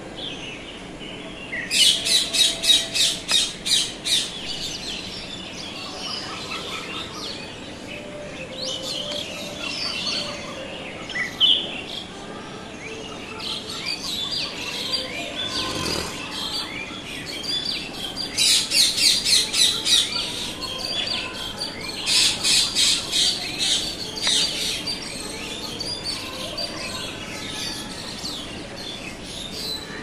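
Rose-ringed parakeet calls: three runs of rapid, shrill repeated calls, about four a second, the first about two seconds in and two more close together in the second half, with scattered single chirps between.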